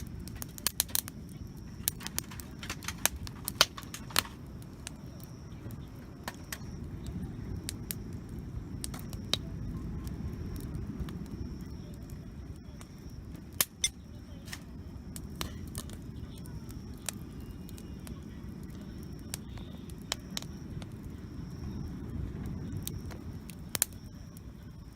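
Wood campfire crackling, with irregular sharp pops that come thick in the first few seconds and then only now and then. A low steady rumble runs beneath.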